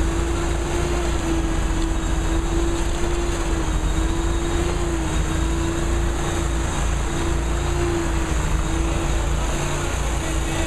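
Riding lawn mower's engine running steadily at speed, a constant hum that wavers slightly in pitch, with wind rushing over the microphone.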